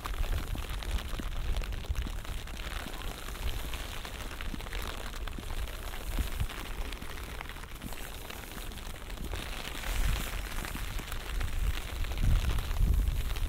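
Light rain falling: a steady hiss with many small drop taps, over a low rumble that swells near the end.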